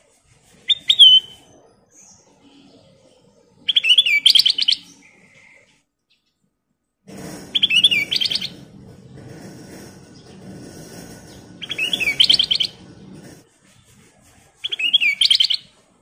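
Ruby-throated bulbul (kutilang emas) singing: five short, quick bubbly phrases, each about a second long, a few seconds apart.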